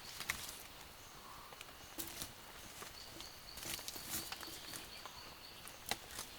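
Rainforest background with scattered light clicks and knocks, the sharpest about a third of a second in and near the end, over a faint, high, repeated chirping.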